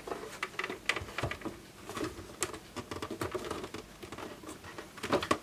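Plastic back casing of an oscilloscope being worked loose and lifted off by hand: scattered, irregular clicks and scrapes of plastic against plastic.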